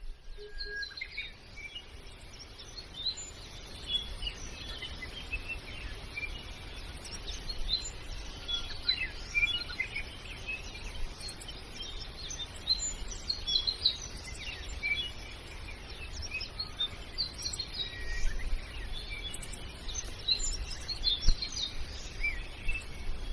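Many small birds chirping in short, scattered high calls, over a low steady rumble.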